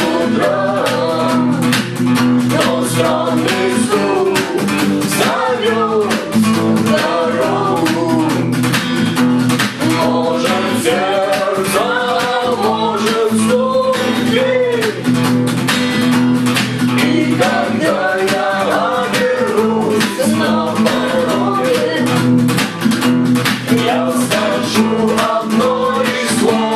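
Strummed acoustic guitar playing an instrumental passage of a song, with a moving melody over the steady chord strokes.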